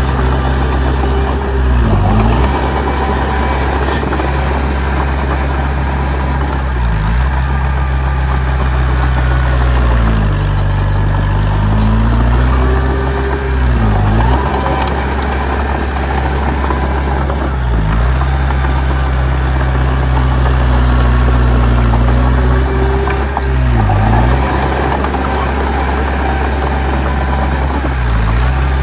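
Heavy diesel engine of earthmoving machinery running loud and steady. Its pitch dips briefly and recovers every few seconds, with a longer dip near the middle.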